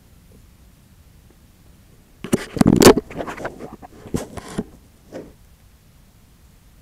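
Handling noise from the camera being picked up: a cluster of knocks, scrapes and rubbing for about two seconds, loudest near its start, then one more short knock a moment later.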